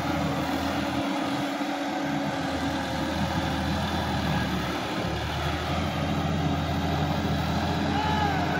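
Sonalika DI-50 RX tractor's diesel engine running steadily under load as it pulls a tilling implement through flooded paddy mud, a constant low hum.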